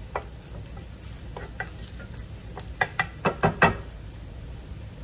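Wooden spatula knocking and scraping against a frying pan while stirring minced garlic in olive oil, with a quick run of knocks about three seconds in, over faint sizzling.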